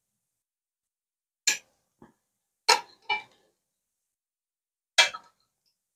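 A metal fork clinking against a ceramic plate about five times at uneven intervals as it cuts into fried cheese galettes.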